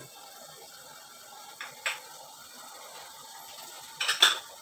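Chili paste (sambal) frying under the closed glass lid of a wok: a faint steady sizzle, muffled by the lid. Two light clicks come about one and a half seconds in, and a short, louder clatter near the end.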